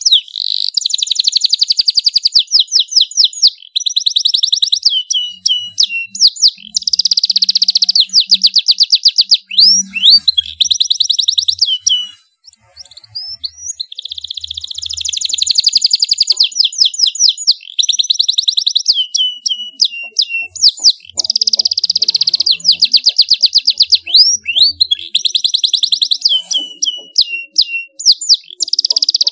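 Domestic canary singing loudly and almost without a break: fast trills of rapidly repeated notes alternating with sweeping whistled notes, pausing briefly about twelve seconds in.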